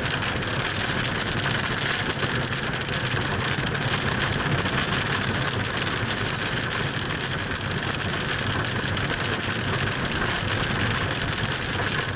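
Hail pelting a moving vehicle, a dense, steady rattle of countless small impacts over the low hum of the engine and tyres on the hail-covered road.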